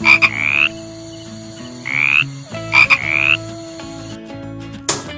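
Frog croaking: three short rising calls, one at the start, one about two seconds in and one a second later.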